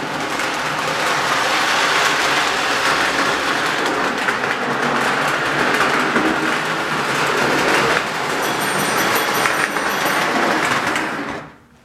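Lionel O-gauge toy train running on metal track, its motor and wheels making a steady rattling run along the rails, with a faint high whine for a couple of seconds near the end. The sound cuts off suddenly just before the end.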